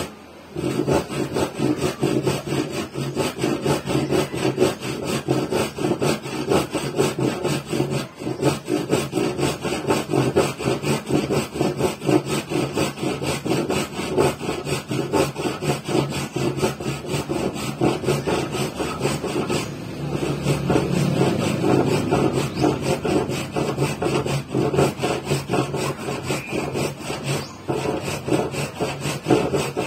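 Hand-pushed western handsaw cutting through a wooden board with a steady run of back-and-forth rasping strokes. The strokes stop briefly just after the start, about eight seconds in, and near the end.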